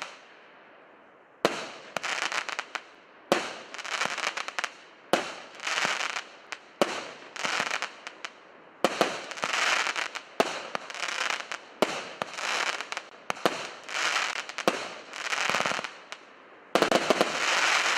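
A 36-shot, 1-inch consumer fireworks battery firing shot after shot. Each shot gives a sharp bang followed by about a second of crackling stars, roughly one every two seconds. Near the end several volleys come close together as the finale.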